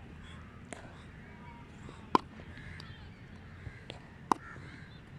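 Sharp cracks of a cricket bat striking a hard ball: two loud strikes about two seconds apart, with fainter knocks between them.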